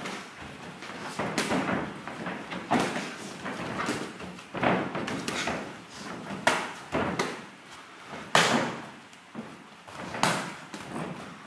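Gloved punches and kicks landing in a kickboxing bout: sharp slaps and thuds at irregular intervals, some in quick pairs.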